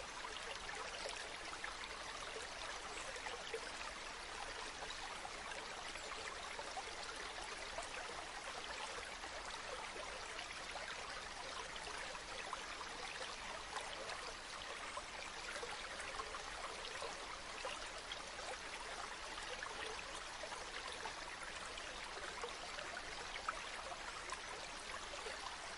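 Steady running water, a stream flowing with many small splashes and trickles.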